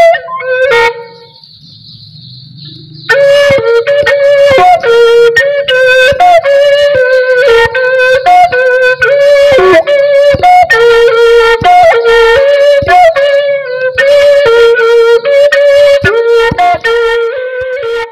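A Hmong raj, a small vertical wind pipe, playing a slow melody of short notes in a narrow range, each set apart by a brief break. A single note sounds at the start and a quiet lull follows; the melody begins about three seconds in and runs on without pause.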